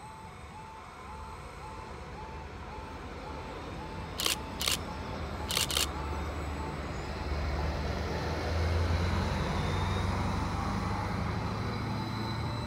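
Greater Anglia Class 755 bi-mode multiple unit approaching and passing, its low engine and wheel rumble growing louder about halfway through. Throughout, a level crossing warning alarm sounds a short tone about two and a half times a second. Two pairs of sharp clicks come about a third of the way in.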